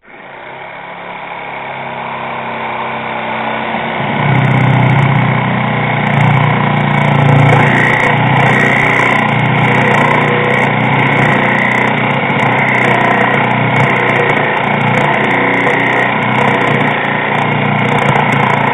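Corded reciprocating saw running steadily as its blade cuts through a tire at the rim. It starts suddenly and grows louder over the first few seconds.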